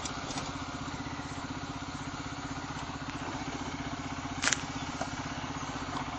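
Honda CBR125's single-cylinder four-stroke engine idling with a steady, even pulse. A single sharp click about four and a half seconds in.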